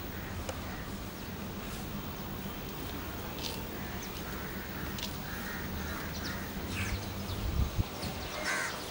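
Outdoor background noise: a low steady hum with scattered short bird calls and a few dull thumps near the end.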